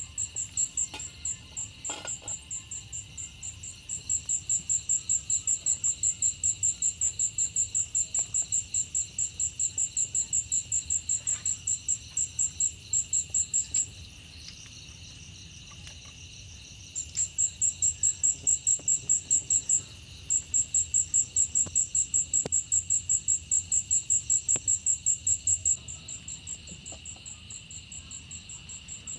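A loud night insect calling in a fast pulsing trill, about four pulses a second. It breaks off twice for a few seconds and drops away near the end. Under it runs a steady high drone from a chorus of other insects.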